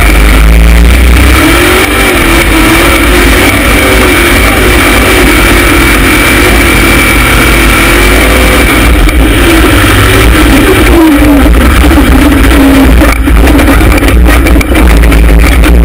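A rock bouncer buggy's LS V8 engine revving hard under load on a hill climb, very loud. Its pitch rises and falls with the throttle, and a few sharp knocks come near the end.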